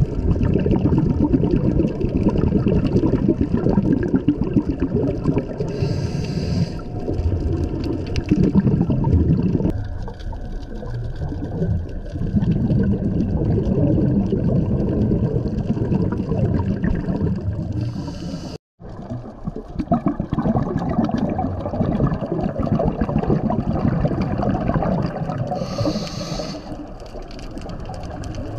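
Underwater sound of scuba diving heard through a camera housing: a steady rumble and bubbling of water and exhaled bubbles, with a brief regulator-like hiss three times. The sound cuts out for an instant about two-thirds of the way through.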